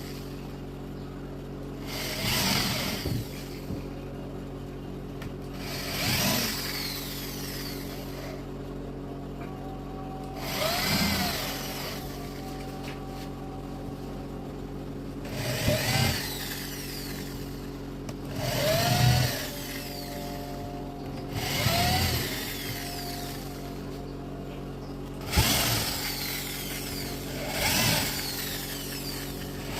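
Power drill driving screws into a board: about eight short bursts a few seconds apart, the motor's whine rising and falling with each screw, over a steady low hum.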